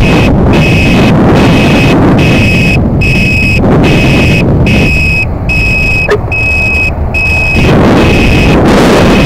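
Heavy wind buffeting on the microphone from riding an electric scooter, with a high electronic beeper sounding a steady on-off beep about every 0.8 s. The wind noise eases for a couple of seconds in the middle.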